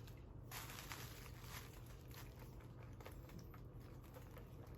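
Faint table sounds of a meal: small scattered clicks and rustles of chopsticks and dishes over a low steady hum.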